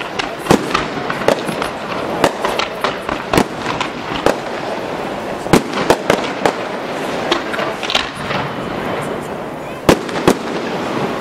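Fireworks display: shells bursting in an irregular series of sharp bangs, about one or two a second, over a steady crackle, with two loud bangs close together near the end.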